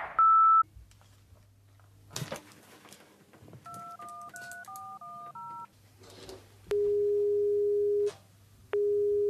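Mobile phone being dialled: after a short high beep and a brief rustle, eight quick two-note keypad tones sound as the number is keyed in. Then comes the ringing tone, a steady low tone heard twice, each about one and a half seconds long, as the call rings out.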